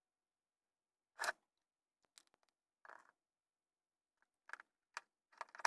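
Faint handling noises of a hand-held LED bulb: a short scrape about a second in, a fainter rub a couple of seconds later, then a few light clicks and taps near the end.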